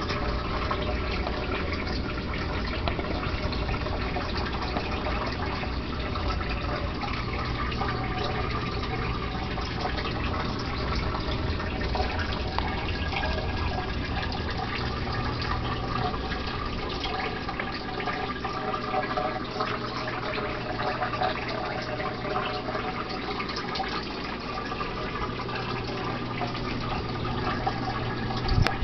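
Steady trickling and splashing of water in a turtle aquarium, as from a filter's outflow, with a low hum underneath through the first half.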